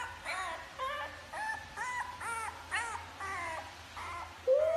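French bulldog puppy giving a quick string of short, high whimpering yips, each rising and falling in pitch, then starting a long howl near the end.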